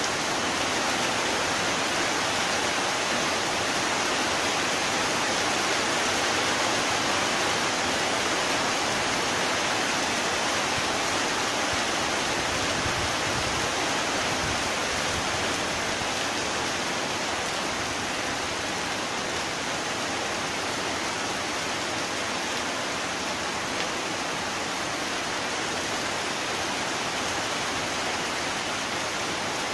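Heavy rain falling as a steady, dense hiss, easing very slightly about halfway through.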